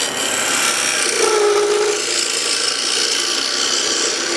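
Woodturning scraper cutting into a spinning wooden blank on a lathe, hogging out material: a steady rasping scrape, with a brief steady tone about a second in.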